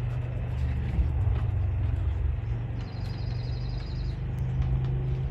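A steady low rumble, with a rapid high-pitched trill lasting about a second around three seconds in.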